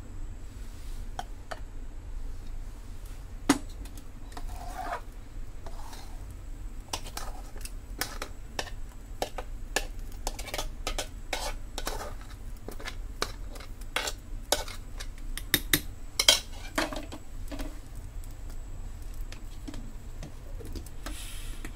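Steel kitchen utensils clinking and scraping: a spoon knocking against a steel mixer jar and pot while thick date-jaggery chutney is scraped out. The taps come irregularly, with one sharp knock a few seconds in and a louder cluster of clinks about two-thirds of the way through.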